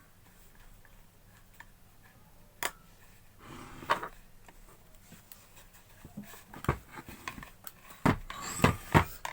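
Scattered metallic clicks and knocks of hand tools and parts being handled while a water pump is tightened up during reassembly, with a brief rustle near the middle and a quick run of louder clicks near the end.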